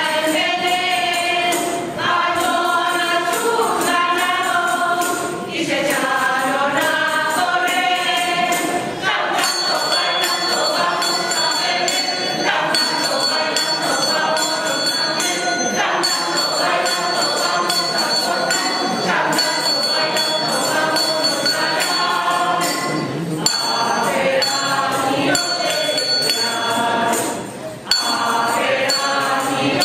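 Mixed choir of men's and women's voices singing a Spanish Christmas carol (villancico) in several parts.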